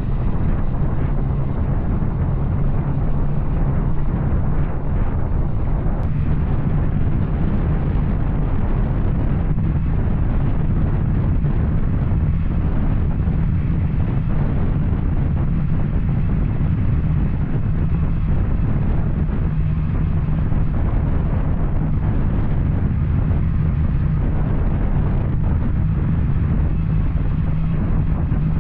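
Yamaha Tracer 900's inline three-cylinder engine pulling steadily under way through an Arrow aftermarket exhaust: a continuous, deep engine drone.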